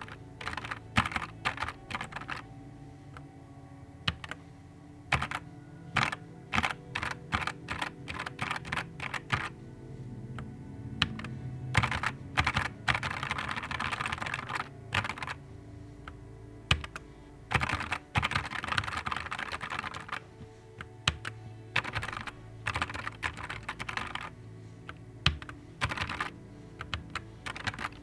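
Typing on a Nuphy Air 75 V2 low-profile mechanical keyboard: irregular bursts of key clicks broken by short pauses, with two stretches of fast continuous clatter around the middle and about two-thirds of the way through.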